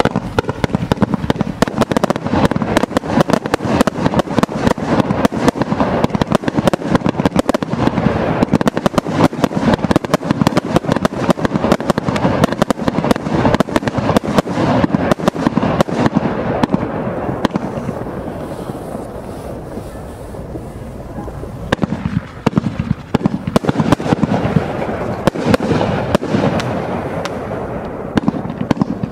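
86-shot single-ignition firework cake (Tai Pan 'Not On My Watch') firing a rapid, continuous barrage of shots and bursts. The barrage thins out for a few seconds past the middle, then picks up again.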